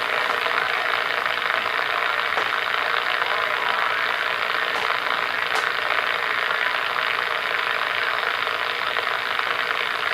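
Steady receiver static hissing from the Stalker 9F DX CB radio's speaker, with no voice coming through.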